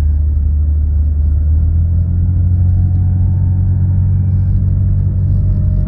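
BMW E32 730i's M30B30 straight-six running with a steady low rumble and a faint whine that drifts slightly in pitch; it is a noise the owner cannot identify.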